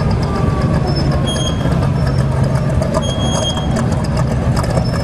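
T-bucket hot rod's exposed engine running at low speed as the car rolls slowly past close by, a loud, steady low rumble.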